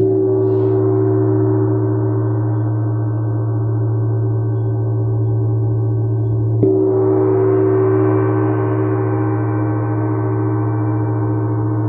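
A 24-inch (60 cm) wind gong struck twice with a padded mallet, at the start and again about six and a half seconds in, each stroke ringing on long with a strong deep hum under many higher tones.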